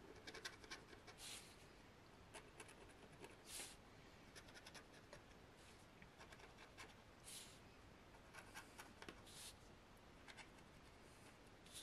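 Faint scratching of a thin pointed tool rubbing the scratch-off coating from a paper game sheet, in short strokes with small pauses between them.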